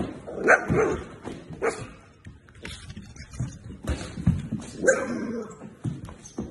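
Dog barking several times in short, sharp calls, agitated by people sparring nearby, with a few low thuds in between.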